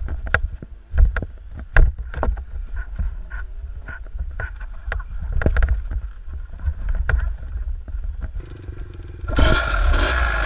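Motorcycle engines running, with irregular knocks and clatter of a dirt bike being handled and wind buffeting the helmet-camera microphone. About nine seconds in, an engine revs up loudly and the bike moves off.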